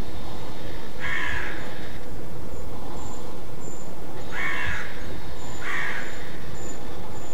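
Roe deer giving its hoarse alarm bark three times: once about a second in, then twice more about a second apart near the middle. This is its warning call at danger, which hunters call "Schrecken". A steady low rumble runs underneath.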